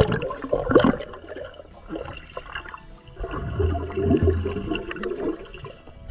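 Swimming-pool water splashing and bubbling, heard muffled through a camera that is dipping underwater, with a loud splash in the first second and a churning, gurgling stretch in the middle.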